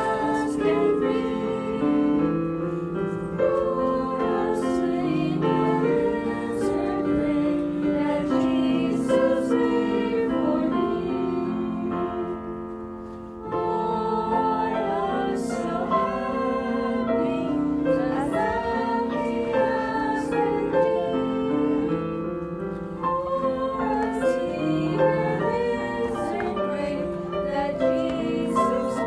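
A children's Sabbath School song being sung with piano accompaniment, with a brief pause about halfway through before the next verse starts.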